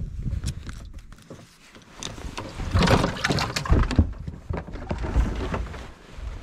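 Knocks and clatter of handling on a bass boat deck while a fish goes into the livewell and the hatch lids are worked, with a louder run of knocks about three seconds in.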